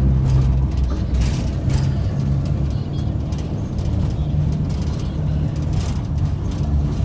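A steady low motor rumble with a deep drone that shifts slightly in pitch, with a few light clicks over it.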